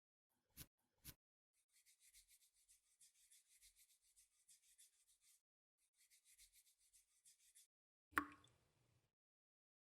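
Two small clicks, then rapid back-and-forth rubbing or brushing strokes, about four or five a second, in two runs with a short pause between. About eight seconds in comes a single sharp knock that rings briefly.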